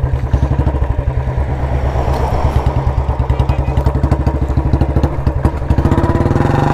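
Royal Enfield Bullet Standard 350's single-cylinder engine running loud and thumping through a short bottle aftermarket exhaust while the bike is ridden. The revs pick up near the end.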